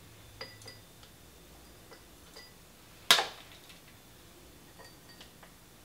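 Spoon clinking lightly against a small glass bowl and dessert glasses while chopped Toffifee is spooned out: a few soft, briefly ringing clinks spaced apart, with one sharper knock about three seconds in.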